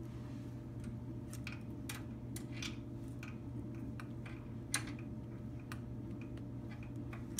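Scattered light metallic clicks and ticks of a wrench working the valve adjuster lock nut on a VW air-cooled engine's rocker arms, spaced irregularly about one or two a second, over a steady low hum.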